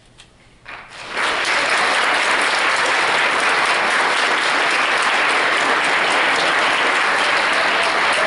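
Audience applauding: after a brief hush, clapping breaks out about a second in and swells quickly to a full, steady applause.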